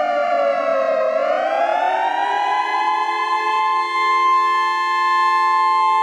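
Air raid siren wailing: its pitch falls for about a second, then climbs back up and holds a steady high note.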